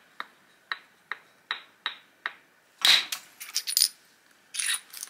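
Antler billet striking the edge of a stone biface preform in percussion flaking. A run of light, sharp taps comes about two a second, then a heavier blow about three seconds in, quick clicks after it, and another strong strike near the end.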